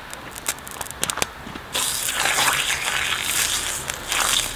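Fresh oil hitting a hot steel saj pan, made from a harrow disc, and sizzling: a loud hiss that starts suddenly a little under two seconds in, after a few light crackles. This is the second round of burning in, or seasoning, the new pan.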